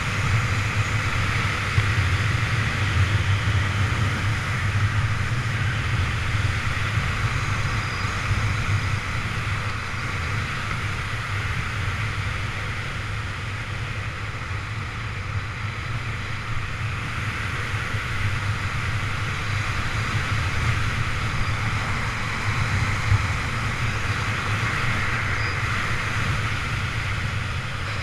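Steady rush of airflow over the camera's microphone while flying under a speed-riding wing, easing a little in the middle.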